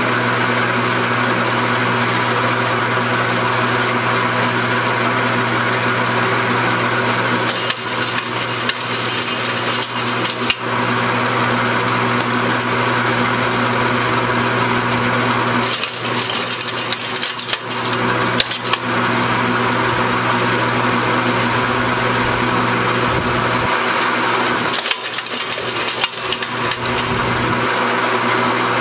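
Electric soil shredder running with a steady motor hum, while three shovelfuls of dirt go through it, each heard as a few seconds of rattling and crackling.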